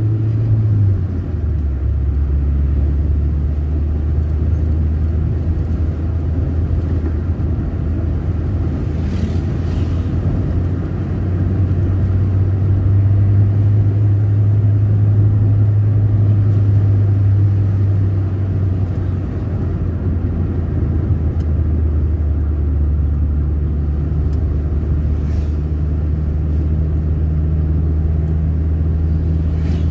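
Car engine and road noise heard inside the cabin while driving: a steady low hum that shifts up and down in pitch a few times as speed and gears change.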